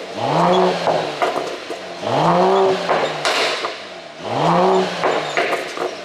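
Mercedes-AMG E53's turbocharged inline-six revved three times about two seconds apart, each rev rising and falling. Each rev is followed by crackles and pops from the exhaust as the revs drop, the effect of an ECU pop-and-bang tune.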